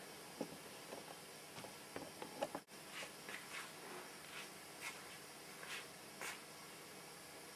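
Faint steady recording hiss with scattered soft ticks and rustles, a brief dropout about two and a half seconds in, then higher-pitched ticks roughly every half second.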